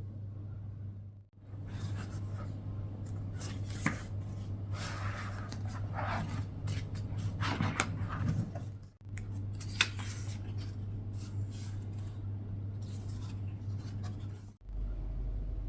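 Steady low hum with irregular rustling, scraping and several sharp clicks, which are strongest in the first half; the sound drops out briefly three times.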